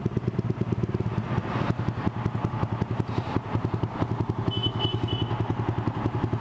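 Yamaha R15 V3's 155 cc single-cylinder engine running at a steady, even pace through an aftermarket Villan exhaust. A short high beep-beep-beep sounds about four and a half seconds in.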